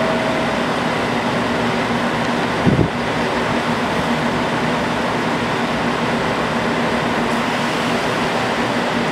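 JR Kyushu 787 series electric train standing at the platform, its air-conditioning and auxiliary equipment giving a steady whir with a constant low hum. A single dull thump comes nearly three seconds in.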